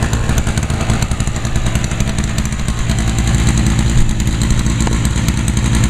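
Lawn-Boy two-stroke walk-behind mower engine running steadily at a constant speed.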